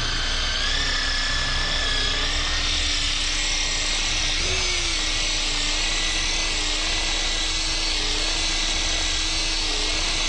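Power drill spinning a tire-plug reamer through a puncture in a car tire, a steady whine that shifts up in pitch briefly about four and a half seconds in. The drill is reaming the nail hole clean, which also warms the rubber so the plug will seat.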